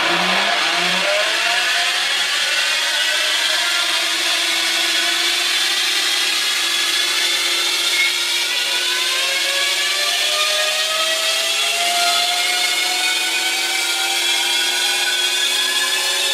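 Electric lawn mower motor running uncovered, a whine with several tones that climbs slowly and steadily in pitch as the motor speeds up.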